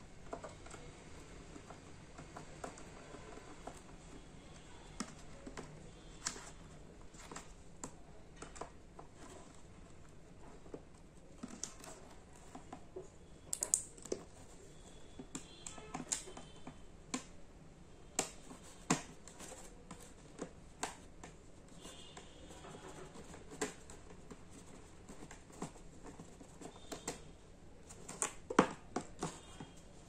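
Small screwdriver taking screws out of plastic tabs on a cardboard packaging box: irregular sharp clicks and ticks of metal on screw and plastic, with a louder cluster about halfway through and again near the end.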